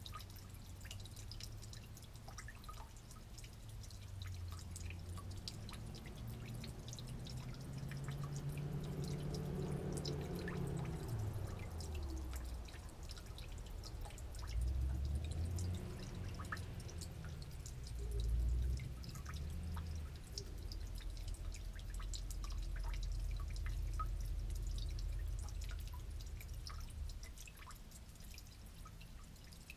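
Old gasoline leaking from a broken valve on an old generator, dripping steadily into a drain pan of collected fuel. A low drone rises and falls underneath through the middle part.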